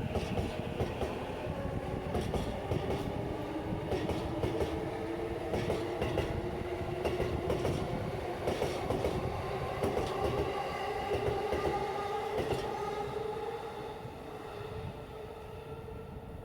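Electric commuter train passing over a level crossing. Its wheels click over the rail joints above a steady rumble, with a hum that rises slightly in pitch. It fades away near the end.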